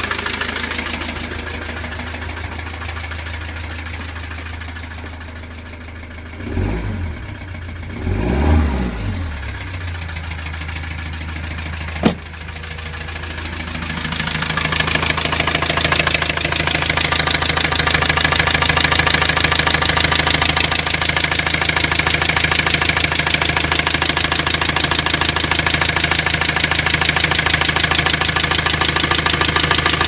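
Ford Transit mk7 2.2 TDCi four-cylinder diesel engine running with a persistent knock. The knock comes from a broken piston and rings on cylinder 4. A single sharp click sounds near the middle, and the engine is louder for the second half.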